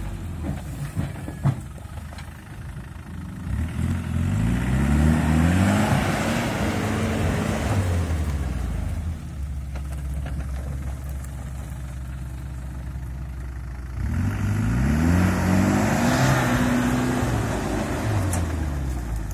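Land Rover Discovery engine working under load as the 4x4 crawls up a steep rutted bank, revving up twice, about four seconds in and again about fourteen seconds in, and easing back to a steadier lower speed between. A single sharp knock comes about a second and a half in.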